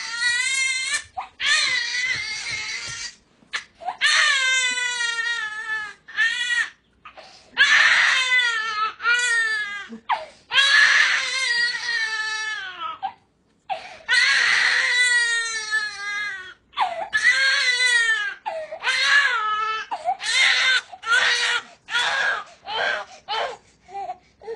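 Infant crying hard in a long run of wails, many of them falling in pitch, with short breaks between cries.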